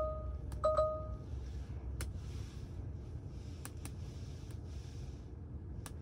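Two short electronic chimes of the same pitch from the Tesla Model 3's touchscreen, the second a little longer, in the first second or so, followed by a few faint fingernail taps on the touchscreen glass over a low steady cabin rumble.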